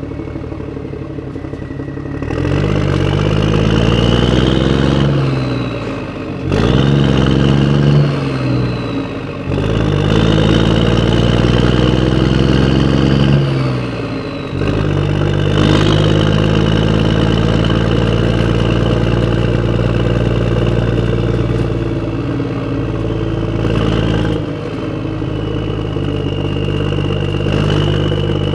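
Motor vehicle engine pulling away through the gears: its pitch climbs three times, each climb ending in a sudden drop at a gear change, then it runs at a steady speed.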